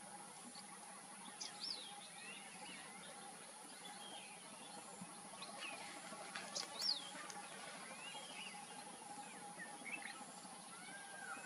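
Red-whiskered bulbul calling: short whistled chirps and slurred notes at irregular intervals, the loudest about seven seconds in. Underneath is a steady faint background hum and hiss.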